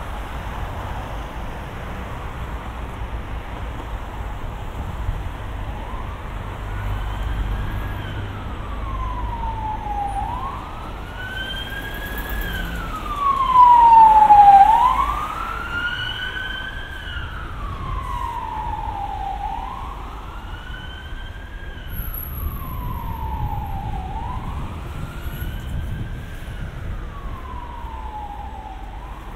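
Emergency vehicle siren in a slow wail, its pitch rising and falling about every four to five seconds. It comes in about six seconds in, is loudest around the middle as it passes close, then carries on a little fainter, over a steady traffic rumble.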